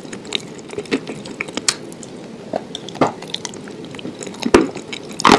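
Close-miked chewing, with irregular wet clicks and squishes from the mouth. The sounds grow louder and come closer together in the last second or so.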